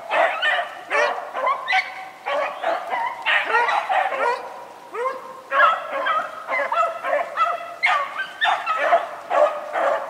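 A pack of beagles baying together on a running rabbit, several dogs' drawn-out bawls overlapping one after another with hardly a break: the hounds are on a hot trail, pushing the rabbit.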